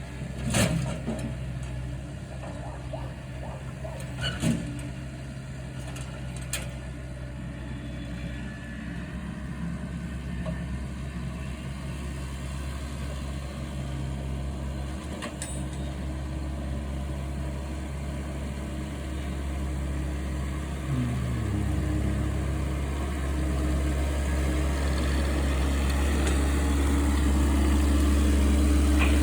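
Heavy diesel engine of the machinery loading and hauling the logs, running steadily with a few knocks in the first few seconds. About two-thirds of the way through its pitch shifts and it grows steadily louder to the end, as if working harder or coming closer.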